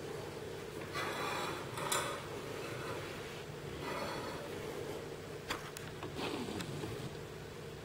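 Handling noise from fingers turning a closed titanium-handled folding knife: a few brief rustles, then several light clicks about five and a half to six and a half seconds in, over a steady hiss and hum.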